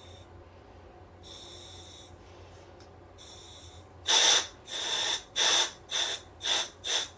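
Breathing through a SMACO full-face dive mask's regulator: two soft breaths of air, then from a little past halfway the purge (clearing) button is pressed repeatedly, six short loud bursts of air about two a second, blowing the fog off the mask lens.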